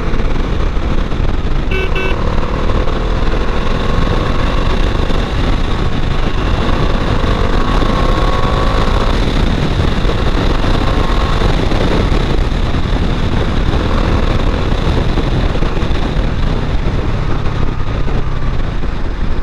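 Bajaj Dominar 400's single-cylinder engine running on the move in traffic, heard under heavy road and wind noise, its pitch rising between about two and nine seconds in. A vehicle horn toots briefly about two seconds in.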